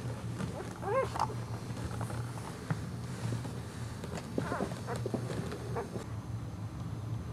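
Two-week-old Boxer puppy whimpering: a short high-pitched squeal about a second in and a few fainter ones around four and a half seconds.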